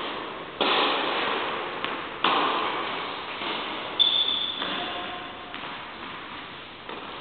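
Tennis balls struck by rackets and bouncing, each sharp pop trailed by a long echo from the large hall; three loud hits come about a second and a half apart, with fainter knocks between. A brief high squeak rings out right after the third hit.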